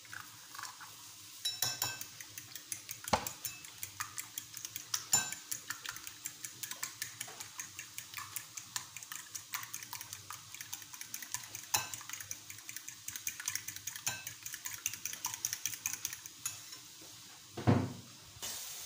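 A fork beating a raw egg in a small glass bowl, tapping rapidly against the glass for about fifteen seconds. Near the end there is one louder knock.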